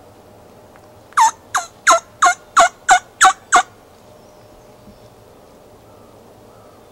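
Turkey calling: a run of eight loud, sharp notes, each dropping steeply in pitch, about three a second.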